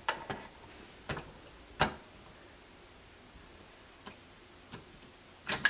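Scattered sharp clicks and taps of small metal lock hardware (screws and a screwdriver) being handled at a door lock. The loudest tap comes about two seconds in, with fainter ones later.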